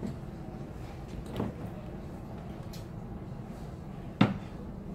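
Steady low background noise with a soft knock about a second and a half in and a sharp knock about four seconds in, from an articulated desk lamp being handled on a desk.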